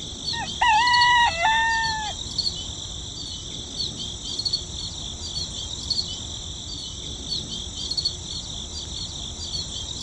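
A rooster crows once, a long stepped cock-a-doodle-doo from about half a second in to two seconds in. A steady bed of high insect chirping with small repeated chirps runs under it and on after it.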